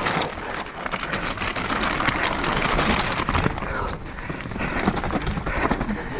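Mountain bike descending a rough forest trail at speed: tyres crunching over loose stones and dirt, with a steady rattle of clicks and knocks from the bike, and wind rushing over the microphone.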